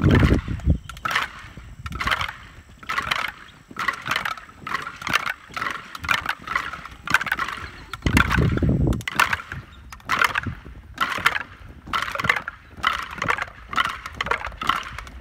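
Many feet crunching on gravel as a group marches in step, about two steps a second, with two bursts of low rumble, one at the start and one about eight seconds in.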